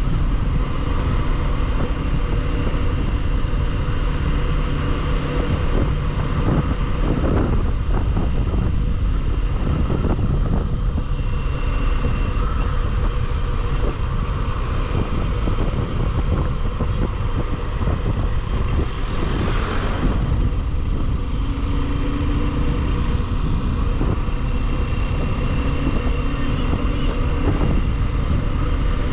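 Bajaj Pulsar motorcycle on the move: its single-cylinder engine running steadily under wind rush on the microphone, with two brief louder swells about seven and twenty seconds in.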